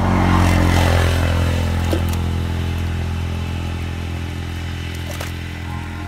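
An engine running at a steady speed, loudest near the start and easing off slightly, with a few light clicks.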